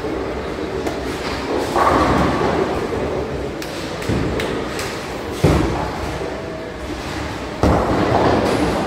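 Bowling alley noise in a large hall: heavy thuds of bowling balls landing on the lanes over the steady rumble of balls rolling, with a couple of longer crashes of pins being struck, one about two seconds in and one near the end.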